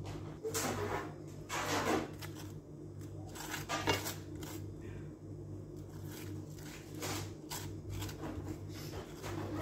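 A utensil spreads white sauce over a paratha on a paper plate, giving soft scraping and rustling in a few short bursts, loudest about two and four seconds in. A steady low hum runs underneath.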